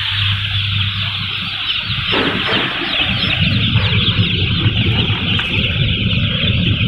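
Hundreds of newly hatched chicks peeping all at once, a dense, continuous high chirping, over a low steady machine hum. About two seconds in, a deeper rumble joins the hum.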